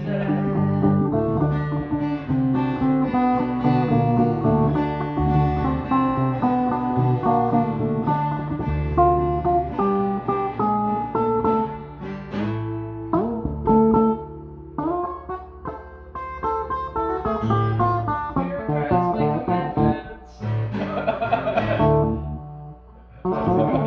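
Stratocaster-style solid-body electric guitar playing a run of single notes and chords. The playing drops away briefly near the end.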